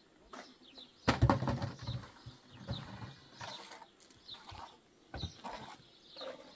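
A loud knock followed by a second of rattling and rustling about a second in, another knock about five seconds in, and scattered rustling between them, with short bird chirps in the background.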